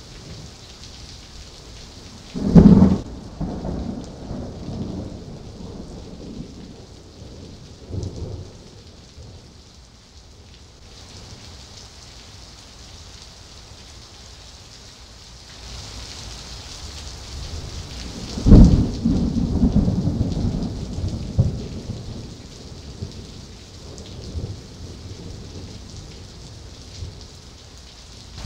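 Heavy thunderstorm rain falling steadily, broken by two loud, sudden thunderclaps from nearby cloud-to-ground lightning, about three seconds in and again near the middle, each rolling off into a few seconds of low rumbling, with a smaller clap in between.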